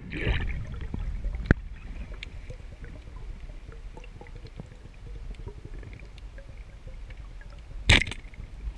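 Underwater sound through a camera's waterproof housing: a steady, muffled low rumble of water movement with many faint scattered clicks. There is a sharp knock about one and a half seconds in and a louder one near the end.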